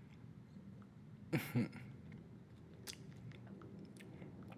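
Bubble gum being chewed close to the microphone: soft wet clicks and smacks, with one louder double smack about a second and a half in.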